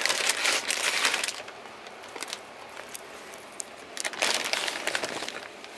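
Crisp crinkling and crunching as shredded slaw topping is handled over crispy fried taco shells. It comes twice: once at the start and again about four seconds in.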